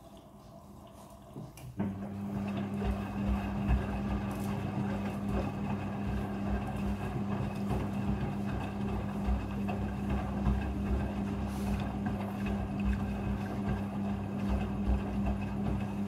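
Front-loading washing machine rinsing a blanket: a quiet trickle of water filling the drum, then about two seconds in the drum starts tumbling, with a steady motor hum, water sloshing and irregular low thumps of the wet blanket turning over.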